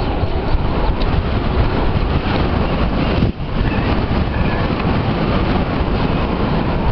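Wind rushing over the microphone while riding a bike: a loud, steady roar with a brief dip about three seconds in.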